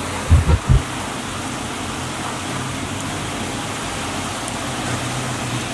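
Heavy downpour falling in a steady hiss, with three short low thumps under a second in.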